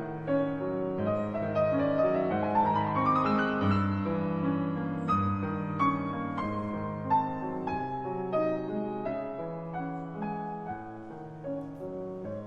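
Background piano music, with a rising run of notes about two seconds in.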